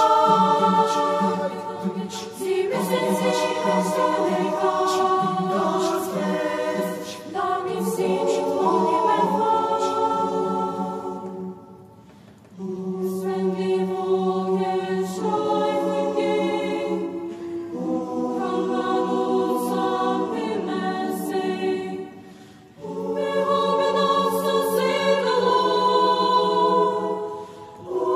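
Mixed youth choir of girls' and boys' voices singing a cappella in several parts, in long sustained phrases with short breaks between them.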